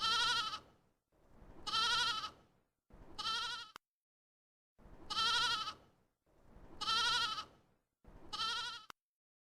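Sheep bleating: six quavering bleats in two runs of three, each bleat about a second long. The third bleat of each run is shorter and cuts off sharply.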